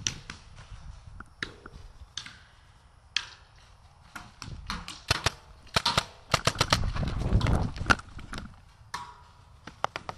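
Paintball markers firing: scattered single pops, then a rapid string of shots from about five to eight seconds in.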